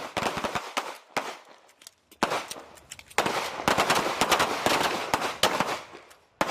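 Several pistols firing rapid, overlapping strings of shots on a range. There is a quick cluster in the first second, a short lull, then a dense run of shots from about two seconds in to near the end.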